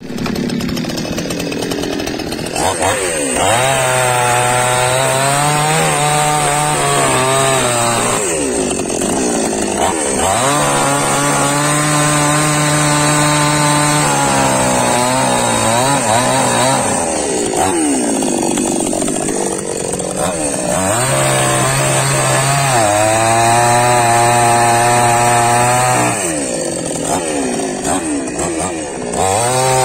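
Small two-stroke chainsaw cutting logs, running at high revs. Its engine speed sags and climbs back again about every five or six seconds as it bites into and clears each cut.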